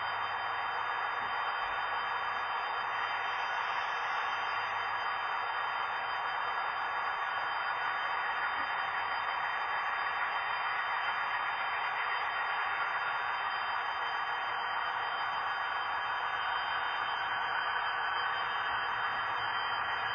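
A steady, even hiss that does not change, with no clicks, knocks or other distinct sounds.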